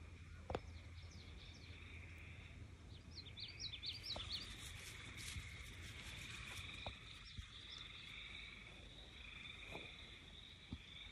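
Faint evening field ambience: a steady chorus of frogs trilling, with a bird giving a quick run of chirps about three to four seconds in, and a few soft clicks and rustles in the grass.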